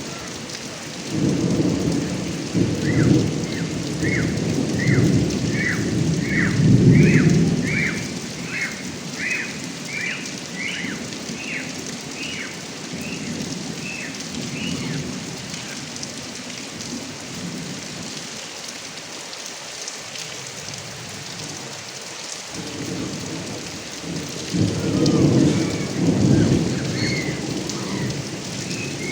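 Heavy rain pouring steadily off a roof gutter spout, with two long rolls of thunder, one near the start and one near the end. Over it, an animal gives a series of short high chirps, about one and a half a second, slowly rising in pitch.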